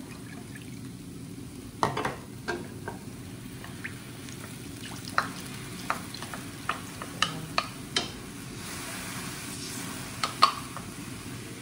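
A wooden spatula scrapes sauce out of a ceramic bowl into a steel wok of hot, liquid sauce, with about a dozen sharp knocks as the spatula and bowl hit each other and the wok rim. The sauce sizzles faintly over a steady low hum, and the hiss rises briefly near the end.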